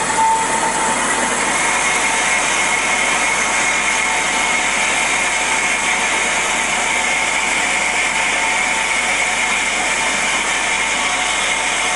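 Cosen R-250NC automatic horizontal bandsaw running in its auto cycle, the blade cutting down through a piece of 2x2 timber: a steady running noise, with a higher steady tone coming in about a second and a half in and holding.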